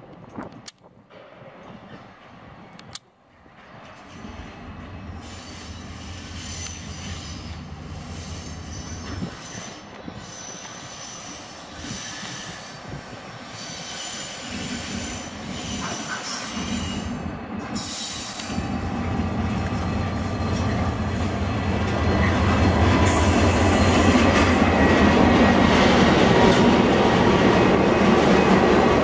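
DFB-class diesel-electric locomotive heading a passenger train, its engine drone growing steadily louder as it approaches and passes close by, with thin high squeals at times.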